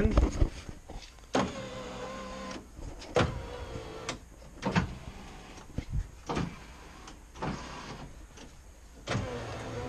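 Electric power window motors of a 1998 Subaru Impreza wagon moving the door glass in short runs with a steady whine, with sharp clicks between runs. The newly wired windows are working.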